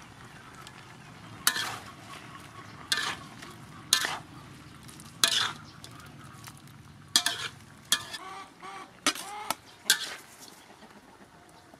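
Metal spatula scraping and knocking against a steel wok as a stir-fry is tossed, with a low sizzle of frying underneath. From about seven seconds in come several quick, ringing metal clinks as the spatula strikes the wok and a metal plate while the food is served out.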